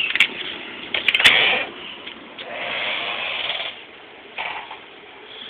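Card-slot door lock on a dorm room door being worked: a light click as the keycard goes in or comes out, then a loud cluster of clicks and clacks about a second in as the lock and latch are operated, followed by about a second of rustling noise as the door is handled.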